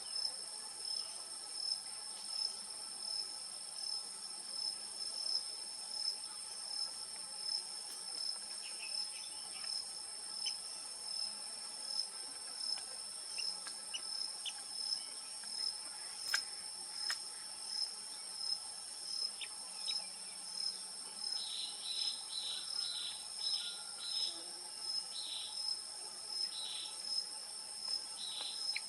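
Steady high-pitched insect chorus, like crickets, pulsing regularly a little faster than once a second. A run of short, higher chirps comes about three-quarters of the way through.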